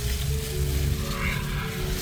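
Background music with steady held notes, over a low rumble and a hiss.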